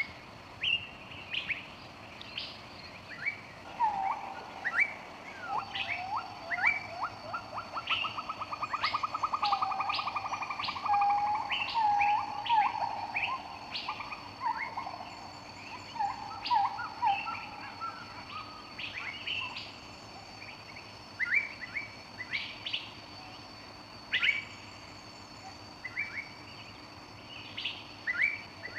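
Several birds chirping and calling, short sharp chirps over and over. Through the middle a lower bird song of whistled notes runs, with a fast trill. A thin, steady high whine sits underneath from about six seconds in.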